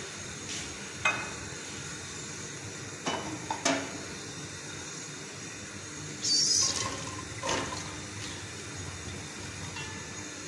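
Sliced red onions tipped from a glass bowl into a pot of oil. They land with a short burst of noise about six seconds in, and a softer one follows. Earlier there are a few light clicks and knocks of the bowl and utensils against the pot.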